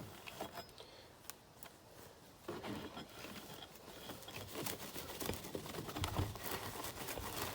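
Faint irregular rubbing and small handling clicks of a rag wiping down an aluminium part with paint thinner to degrease it, starting about two and a half seconds in after a near-silent moment.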